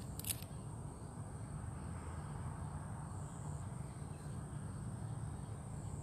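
Outdoor ambience: a steady high insect drone over a low rumble, with a few short clicks just after the start.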